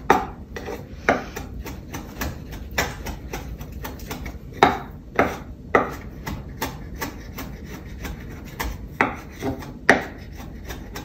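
Chef's knife mincing fresh Thai and Italian basil on a wooden cutting board: irregular knocks of the blade against the board, a few a second, some sharper than others.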